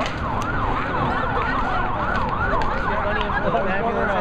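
A siren sounding in fast rising-and-falling sweeps, about four a second, over street crowd noise, with occasional sharp clacks from hockey sticks striking the pavement.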